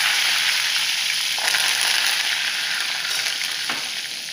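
Curry leaves frying in hot oil with mustard seeds and dals in a tempering, a loud sizzle flecked with fine crackles that slowly dies down.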